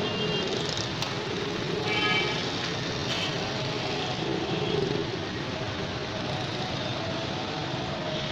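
Steady street traffic noise: a continuous rumble and hiss of passing vehicles, with a brief high-pitched tone about two seconds in.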